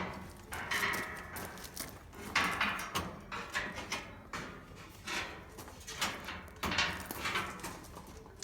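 Irregular knocks and scraping as a shipping frame is worked off a stump grinder and catches.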